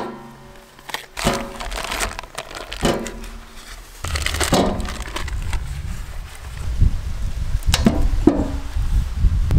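Cardboard butter cartons and paper butter wrappers being torn open and crinkled, in a series of sharp crackles and rustles. A steady low rumble sets in about four seconds in.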